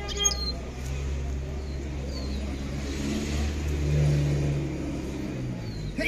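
A motor vehicle's engine running close by. Its low hum swells to a peak about two-thirds of the way in and then eases off. A few faint bird chirps sound above it.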